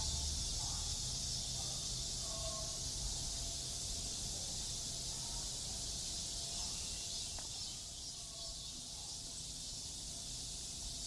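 Steady chorus of cicadas droning in the park trees over a low city rumble, with faint voices of passers-by.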